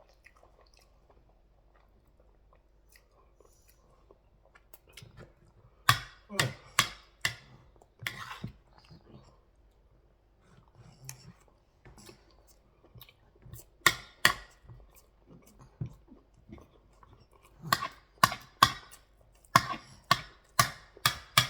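A person eating close to the microphone: chewing and biting in groups of sharp, crisp clicks, separated by quieter pauses.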